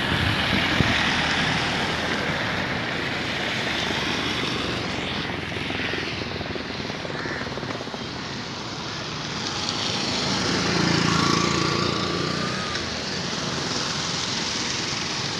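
Road traffic on a wet bridge: passing vehicle engines and tyre hiss on the wet road make a steady roar that swells about two-thirds of the way through.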